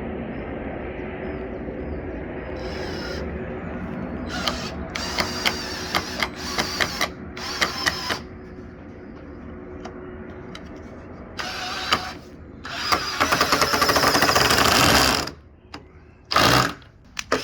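Cordless drill driver running in short bursts, the longest about two seconds near the end, driving into wood. Before that come a run of sharp clicks and knocks over a steady low hum.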